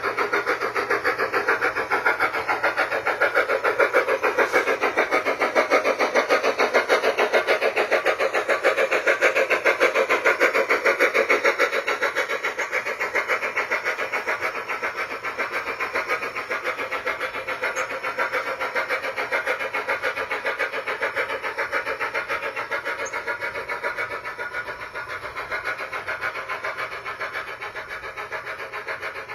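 Steam-locomotive chuffing from a SoundTraxx Blunami steam sound decoder, played through the tender speaker of a G-scale Aristocraft C-16 model locomotive: a rapid, even chuff rhythm that eases off slightly in the second half.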